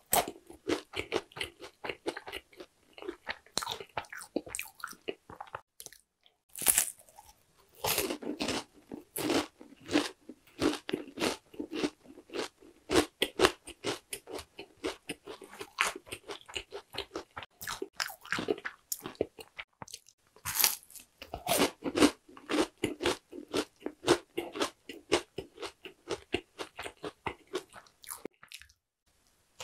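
Close-miked crunchy bites and chewing of orandah, a Korean candy of puffed grains bound with syrup: dense runs of crisp crunches, with a short pause about six seconds in and another near the end.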